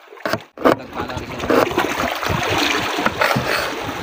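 A knife chopping red onion on a ceramic plate, behind a loud steady rushing of sea water that comes in about half a second in.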